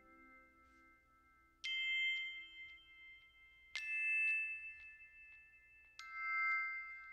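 Three high chords in a bell-like chime sound on an electronic keyboard, each struck sharply and left to ring and fade, about two seconds apart.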